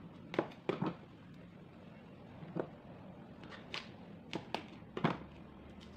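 Kitchen knife halving passion fruits on a plastic cutting board: scattered sharp taps and crunches as the blade cuts through the rind and meets the board, over a faint steady low hum.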